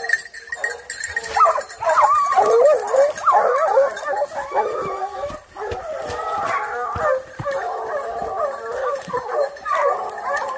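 Several hunting dogs baying on wild boar, their voices overlapping in a continuous chorus of howling barks, with brush crackling underfoot.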